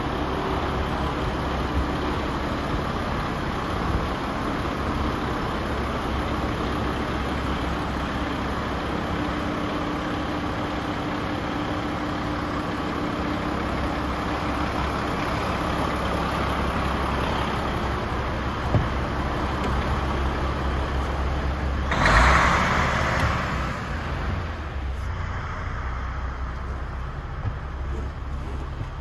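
Paccar 460 bhp Euro 6 diesel engine of a DAF XF106 tractor unit idling steadily. About three-quarters of the way through there is a louder rushing burst lasting about two seconds.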